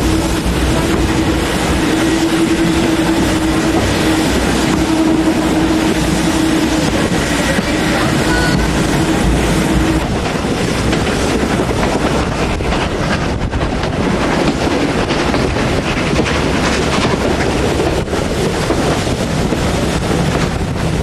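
Steam-hauled passenger train running, heard from a carriage window: steady rolling noise of wheels on the rails. A steady low tone runs over it and stops about ten seconds in.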